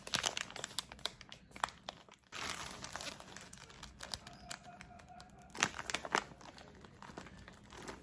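Packaging crinkling and rustling in irregular bursts as shopping items are handled and unwrapped, with a couple of sharper crackles about two-thirds of the way through.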